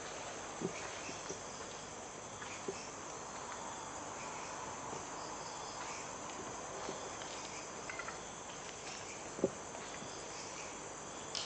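Steady high trilling of night insects, with a few faint knocks and one sharper click late on.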